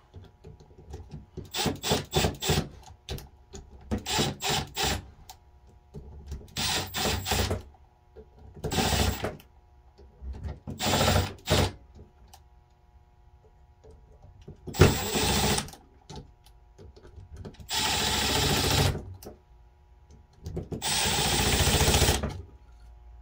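Cordless power driver run in repeated trigger bursts, driving screws into a two-barrel carburetor during reassembly. The first half has clusters of short pulses, then come longer runs of about a second each.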